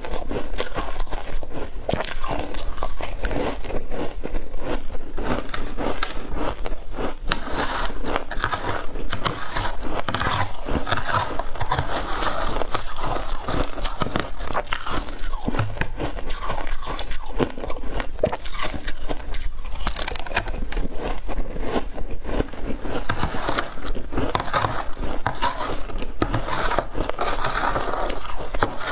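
Close-miked crunching of shaved ice, with dense crackling bites and chewing throughout, and a metal spoon scraping through the ice in a glass dish.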